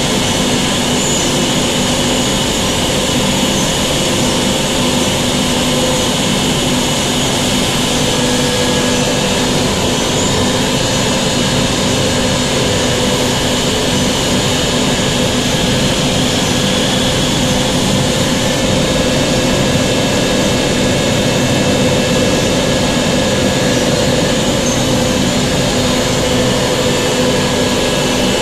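Inline PCB cleaning machine running: a steady loud hum and hiss with a few constant tones.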